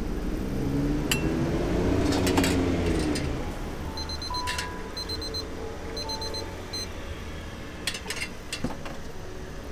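A digital kitchen timer beeps in short rapid runs, about one run a second, for a few seconds in the middle, the timer for the boiling noodles. Sharp metal clinks of ladles against steel pots come before and after it.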